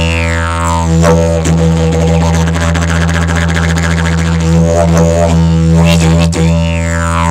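Aspen didgeridoo in the key of E (E2) playing a steady low drone rich in overtones. The overtones swoop up and back down at the start and again about six seconds in, with a stretch of fast rhythmic pulsing in between.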